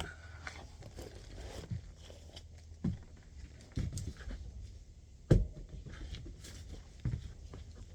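A few irregular thumps and knocks over a low steady hum, the loudest a little past the middle: a person walking and handling gear.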